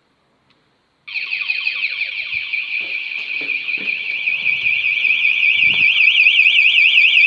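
Home burglar alarm siren set off by its panic button: after about a second of quiet it starts abruptly, a loud, high, rapidly warbling tone that grows louder.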